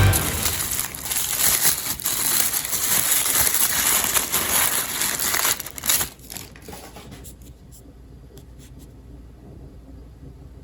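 A large mass of glass marbles rattling and clattering down a wooden marble run in a dense, continuous rush; about six seconds in it thins out to a few scattered clicks of the last marbles.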